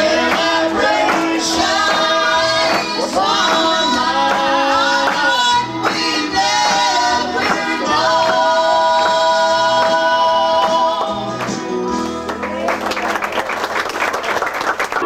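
A woman sings a gospel song into a microphone over instrumental accompaniment, holding long notes. About twelve seconds in the singing stops and a noisy stretch without notes follows.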